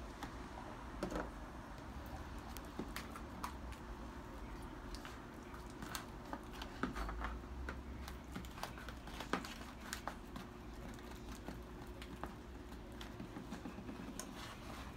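Scattered small clicks and taps of plastic cups, bottles and spoons being handled while slime is stirred and kneaded, over a faint steady hum.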